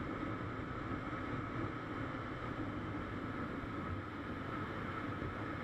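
Steady cruising noise from a vehicle on a highway, recorded on board: even wind and road rumble with a faint steady engine hum and no revving.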